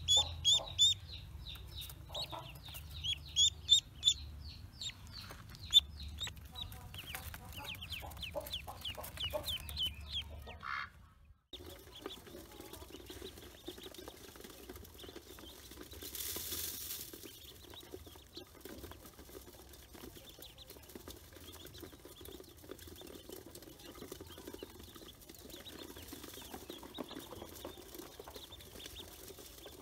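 A newly hatched duckling peeping loudly in quick, high repeated cheeps for about the first ten seconds. After a sudden cut, a group of ducklings in a metal bowl peeps more faintly and steadily.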